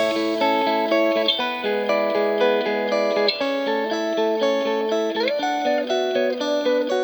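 Background music: a guitar playing a melody of held notes, with a few notes bending in pitch about five seconds in.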